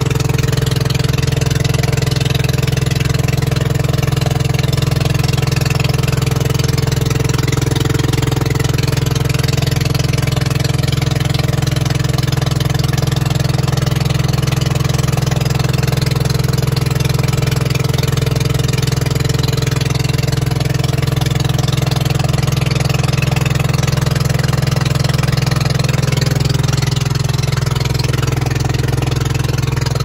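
Engine of a motorized outrigger boat running steadily under way, an even drone, with water rushing past the hull.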